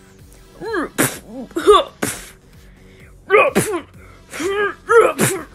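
A person voicing a toy fight with mouth-made sound effects: short shouts and grunts that rise and fall in pitch, mixed with breathy hissing hits, several in quick succession.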